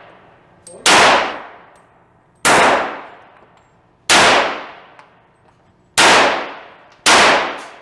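Five gunshots fired one at a time, about one to two seconds apart, each followed by a long echoing tail.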